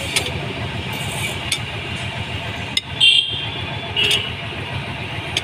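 Steel socket and extension clicking and clinking against a tractor flywheel bolt as it is spun off by hand, with a sharper clink about three seconds in and another about a second later. A steady low engine-like rumble runs underneath.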